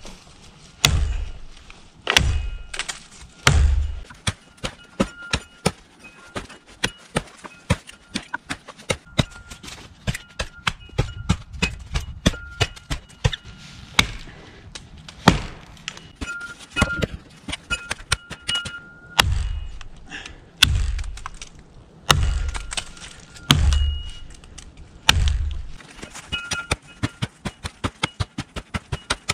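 A Cold Steel Pole Axe's 1055 carbon steel hawk head chopping into a live tree trunk: heavy thunks every second or two, with lighter, quicker sharp knocks in between.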